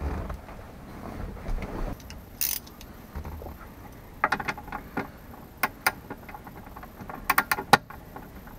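Quarter-inch socket ratchet clicking in short runs as it backs out the small bolts holding the instrument cluster in the dash, with handling rustle before the first clicks.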